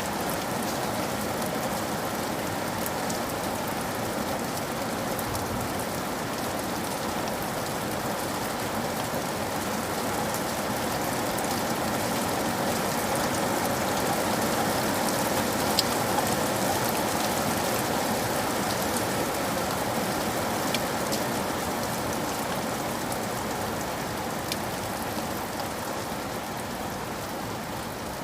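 Steady rain falling, a dense even patter with scattered individual drops, swelling slightly midway and easing off toward the end.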